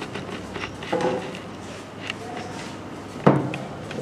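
A sponge dabbing ink through a paper stencil onto a t-shirt on a wooden table: a few soft taps, then one heavy knock on the table about three seconds in.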